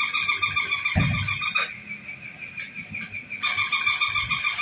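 A plush robot puppy toy giving two bursts, each about two seconds long, of a high, rapidly pulsing electronic sound over a steady high whine. There is a dull thud about a second in.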